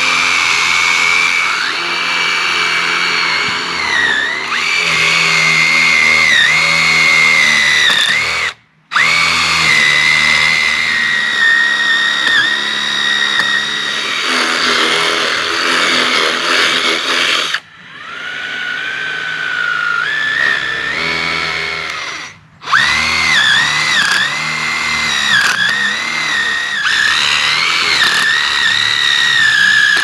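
Power drill boring holes into a dead tree trunk: a steady motor whine that dips in pitch each time the bit bites into the wood. It stops briefly about nine seconds in and again a little after twenty seconds, running slower for a few seconds before the second stop.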